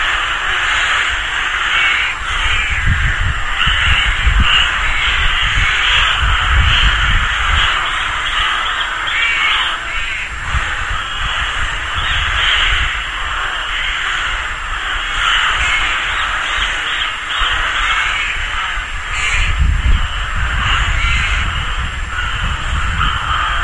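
A rook colony cawing in a dense, continuous chorus of many overlapping calls. Low rumbles come in from about two to eight seconds in and again around twenty seconds.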